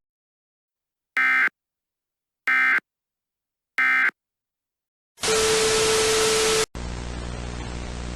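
Three short Emergency Alert System digital data bursts, about 1.3 s apart: the end-of-message code that closes an alert. After them comes loud hissing static with a steady low tone for about a second and a half. It cuts off suddenly into quieter static with a hum.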